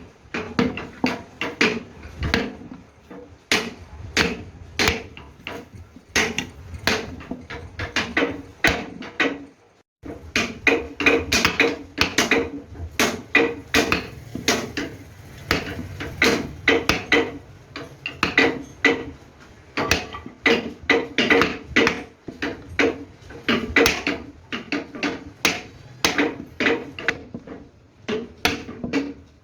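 Hand tool striking a workpiece over and over, like hammering, at roughly two to four blows a second. The blows stop for a moment about ten seconds in, then carry on.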